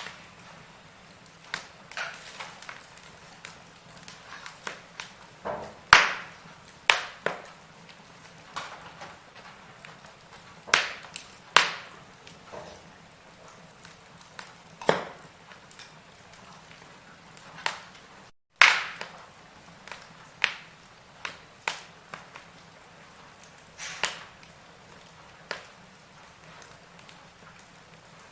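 Wood fire in a fireplace crackling, with irregular sharp pops and snaps over a faint steady hiss. The sound cuts out for an instant about two-thirds of the way through.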